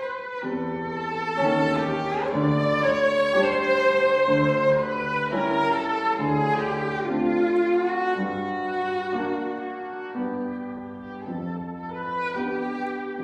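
Cellos bowing a classical piece in several parts at once: a higher melody over lower held notes.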